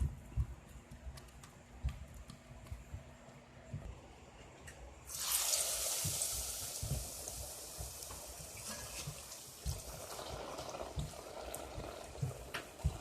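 Soft thumps of bara dough being stretched by hand on an oiled surface. About five seconds in, a loud sizzle starts suddenly as the dough goes into smoking-hot oil, and it carries on as a steady hiss while the bara fries.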